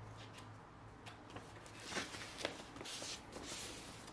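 Faint rustling and sliding of a paper record sleeve as a vinyl LP is drawn out by hand, with a few light clicks; the handling is loudest from about two seconds in.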